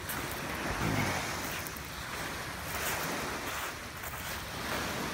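Waves washing onto the shore in slow swells, with wind buffeting the microphone.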